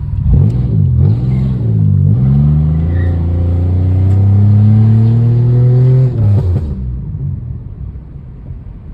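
Pontiac engine revving through an exhaust with the catalytic converters removed: two quick blips, then a longer rev that climbs and holds for about four seconds before dropping back to idle. The engine is not yet fully warmed up.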